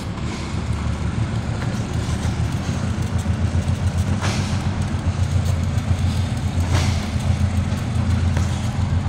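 Two diesel freight locomotives passing close by on a steel bridge, their engines making a steady low rumble, with two brief sharper noises about four and seven seconds in.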